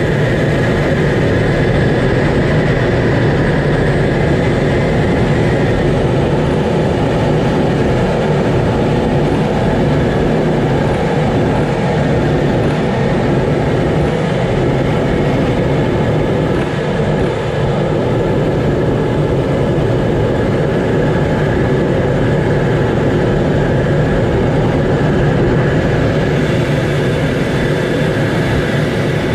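Steady cockpit noise of a Blue Angels F/A-18 jet in flight: a dense, even rush of engine and airflow with a thin steady whine above it.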